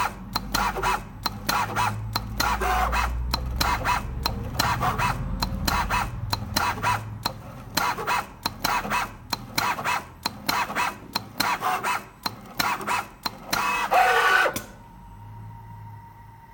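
CNC liquid-PVC dispenser running, its motors humming under a rapid, irregular run of sharp clicks. Near the end a louder falling whine cuts off suddenly, leaving a faint steady tone.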